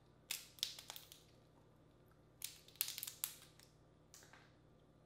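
Boiled crawfish shells being cracked and peeled apart by hand: two bursts of sharp crunching cracks about two seconds apart, each lasting around a second, and a fainter crack near the end.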